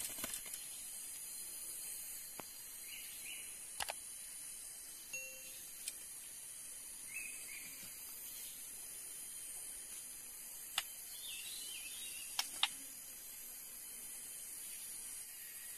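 Faint forest ambience: a steady high hiss with short bird chirps every few seconds and several sharp clicks, the loudest three in the second half.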